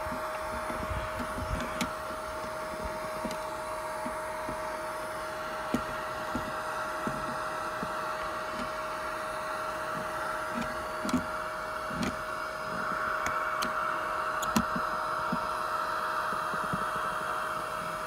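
Eureka Mighty Mite canister vacuum running steadily with a constant motor whine and a rush of air at the wand; the air rush grows louder about two-thirds of the way in. The plastic wand knocks now and then against the floor and seat.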